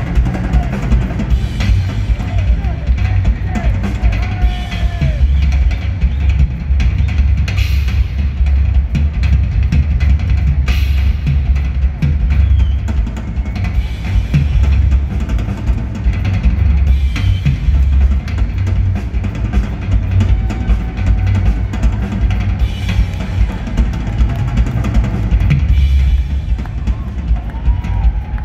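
Rock drum kit played live in a drum solo, amplified through an arena PA: a fast, driving bass-drum pattern with snare hits and rolls.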